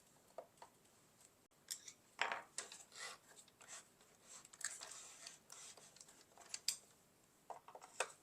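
Light clicks, taps and scrapes of a Roomba i7's small plastic parts being handled and worked on with a screwdriver while its wheel module is being removed. The sounds come in scattered bursts, busiest in the first half.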